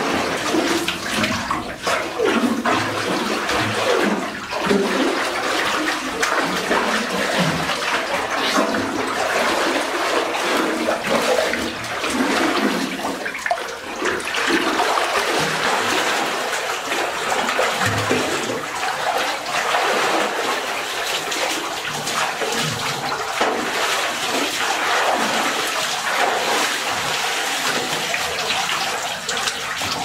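Pool water churning and splashing around a swimmer: a steady rush of water with uneven surges.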